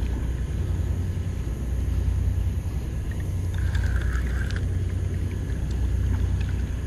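A steady low rumble, with a short whir of a spinning reel being cranked about three and a half seconds in as a hooked fish is reeled in.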